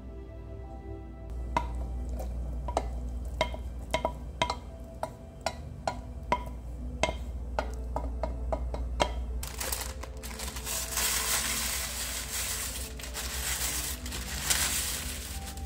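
A utensil tapping and clinking against a glass mixing bowl, about a dozen sharp knocks each with a short ring, as cooked barley is added. About nine seconds in it gives way to a longer rustling, scraping rush as roasted sweet potato cubes tumble into the bowl.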